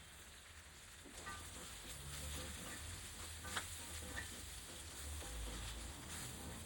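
Okra frying in a pan with a low, steady sizzle that picks up about a second in, with a few light clicks of a utensil stirring.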